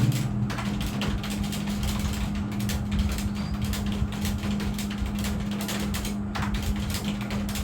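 Fast typing on a computer keyboard: a quick, uneven run of key clicks over a steady low hum.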